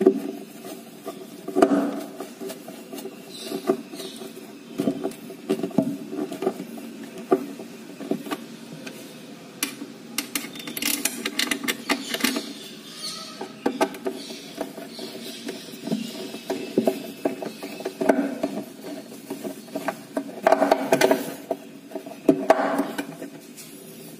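Hand-driving screws into a Blum Aventos lift-up mechanism on a cabinet side panel with a screwdriver: irregular clicks, knocks and scraping of metal fitting and tool against the board, over a steady low hum.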